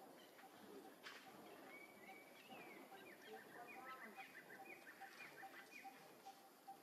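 Faint outdoor ambience of distant birds: a series of short chirps about two to four and a half seconds in, over a low note repeated a few times a second, with a single click about a second in.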